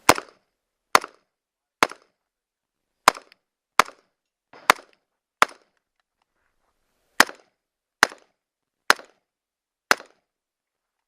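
Eleven gunshots fired one at a time during a timed stage run, mostly about a second apart, with a pause of nearly two seconds after the seventh shot.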